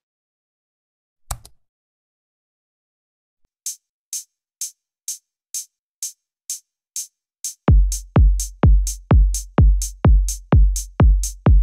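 Electronic backing music. A single short click comes about a second in, then a steady beat of hi-hat ticks about twice a second, joined near the eight-second mark by a heavy kick drum on every beat.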